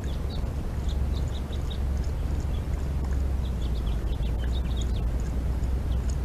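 A coyote lapping water from a steel bowl: faint quick ticks, a few a second in short runs, over a steady low rumble and hiss that is the loudest sound throughout.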